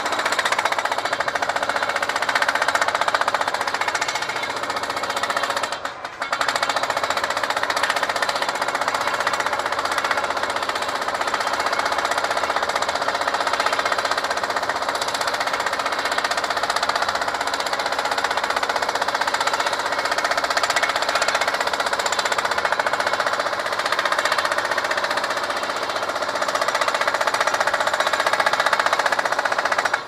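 Remote-controlled jackhammer pounding reinforced concrete in rapid, continuous blows, with one short break about six seconds in.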